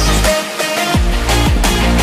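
Electronic background music with a steady beat and deep falling bass sweeps; the deepest bass drops out briefly about half a second in.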